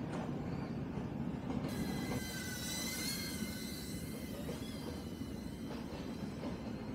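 DJI Avata FPV drone in flight: its motors and propellers whine over a steady rumbling noise. The whine rises and wavers in pitch from about two seconds in, then fades near the end.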